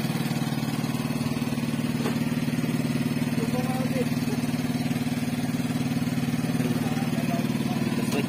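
A small engine running steadily at an even, unchanging speed, a constant low hum.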